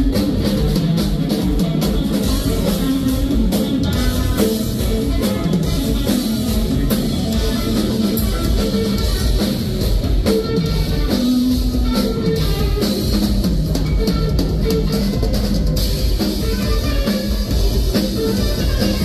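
Rock band playing live: a drum kit with steady cymbal and drum hits, a distorted electric guitar, and a bass line moving underneath, with no singing.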